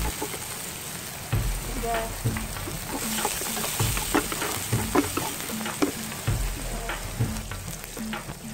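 Minced garlic and chopped green aromatics sizzling in a nonstick frying pan while being stirred, with a steady sizzle and repeated short scrapes and taps of the utensil against the pan.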